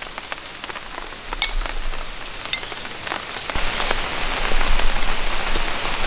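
Light rain falling, with single drops ticking now and then; the rain grows louder about three and a half seconds in.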